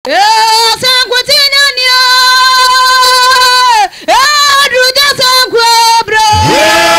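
A high solo voice singing a slow melody in long held notes with gliding pitch, with a short break about four seconds in and almost no accompaniment beneath it.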